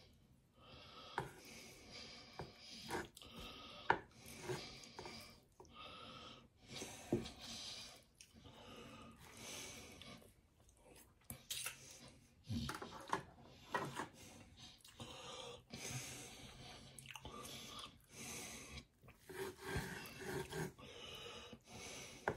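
Faint breathing and mouth noises close to the microphone, with scattered clicks and scrapes from a knife on a wooden cutting board.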